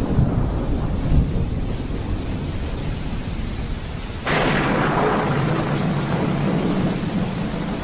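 Thunderstorm with rain: a low rolling thunder rumble slowly fades, then about four seconds in a fresh peal of thunder breaks in suddenly and rumbles on over the hiss of heavy rain.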